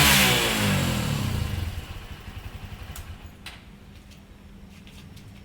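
Honda CRF150's single-cylinder four-stroke engine letting off from high revs at its stock rev limit of around 9,100 rpm. The pitch falls and the sound dies down over about two seconds, leaving a low hum and a few light clicks.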